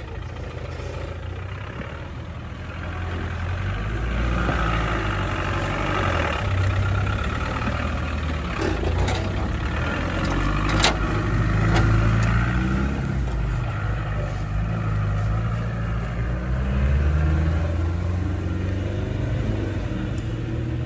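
Land Rover Discovery engine pulling at low speed off-road, its revs rising and falling as the driver works the vehicle through the course. There is one sharp click a little past halfway.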